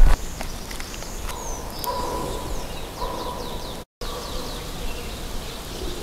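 Woodland ambience with birds calling: a sharp knock right at the start, a steady whistled note on and off in the middle, and quick repeated high chirps in the second half. The sound drops out for an instant about four seconds in.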